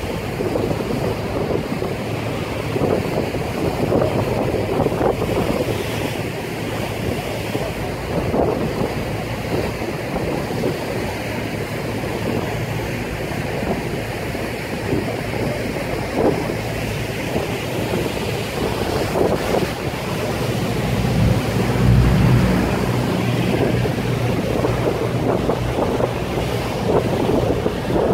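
Wind buffeting the microphone and water rushing past a moving river tour boat, over the steady low hum of the boat's engine. It grows louder for a couple of seconds about three-quarters of the way through.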